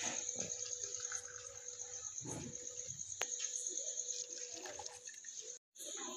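Milk poured from a paper cup into a small steel saucepan, soft liquid splashes with a sharp light click a little after three seconds. A steady high cricket trill runs behind it.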